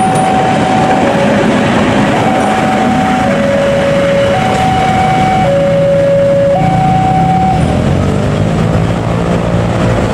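Level crossing warning alarm sounding two alternating tones, high then low, about a second each, over the rumble of a passing passenger train. The alarm stops about three-quarters of the way through, leaving the train noise.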